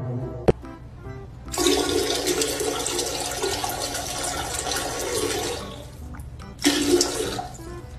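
Toilet flushing, a rushing of water that lasts about four seconds and then dies away, followed by a brief louder burst near the end.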